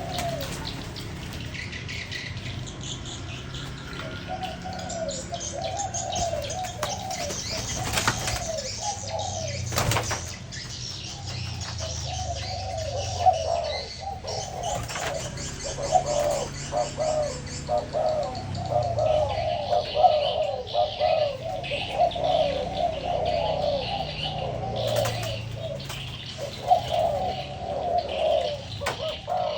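Spotted doves cooing over and over, their phrases following closely on one another as two birds coo against each other, with lighter chirping above and a few sharp knocks.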